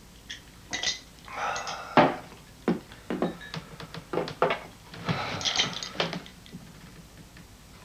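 A run of knocks and clinks with rustling: drinking glasses being handled and set down on a small table, with clothes rustling. The sharpest knock comes about two seconds in.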